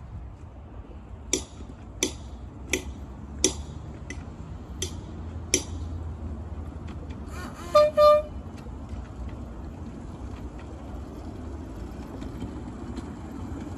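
Miniature railway locomotive's horn giving two short toots. Before them comes a run of sharp clicks, about one every 0.7 seconds.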